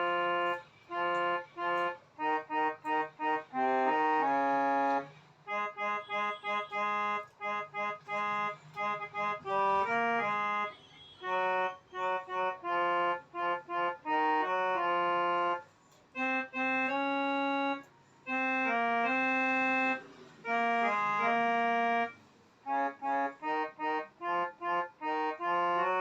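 A reedy, organ-like keyboard instrument playing a melody one note at a time: runs of short repeated notes alternate with longer held notes, with brief pauses between phrases.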